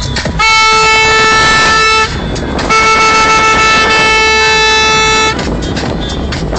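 A car horn blown in two long, steady honks, the second a little longer, one of the celebratory honks of a car parade, over road and wind noise from an open car.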